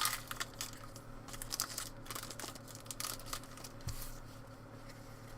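Trading card pack wrapper crinkling and tearing as it is opened by hand, a quick run of small crackles that thins out after about three seconds.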